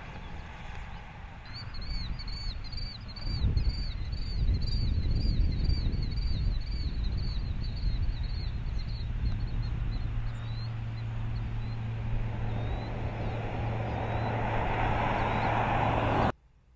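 Jeep Grand Cherokee Summit driving by: a low engine and road rumble that swells about three seconds in, then tyre noise building toward the end before the sound cuts off suddenly. A bird chirps rapidly and repeatedly, about three calls a second, through the first half.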